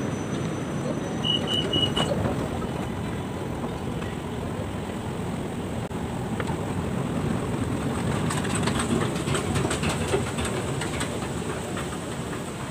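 Steady rumbling din of a metro station with a running escalator and passenger crowd. Four short high beeps come just over a second in, and light clicks and taps follow in the second half.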